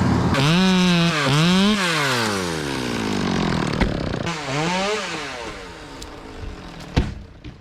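Two-stroke chainsaw revved up hard twice, its pitch climbing and dropping back each time, then winding down. A single sharp knock comes near the end.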